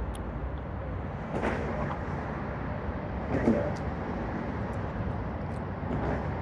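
Steady low rumble of road traffic, with a couple of brief eating sounds about a second and a half and three and a half seconds in, the second one the loudest.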